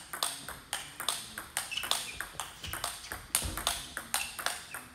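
Table tennis ball clicking sharply off the paddles and the table in a quick, even run of hits during a fast loop-and-block rally.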